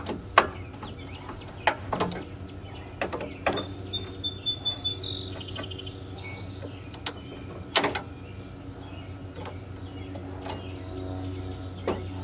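Scattered sharp clicks and knocks of hand tools working on a Land Rover Discovery 2's window regulator, prying out its broken plastic guide wheel, with a short run of high chirps about four seconds in.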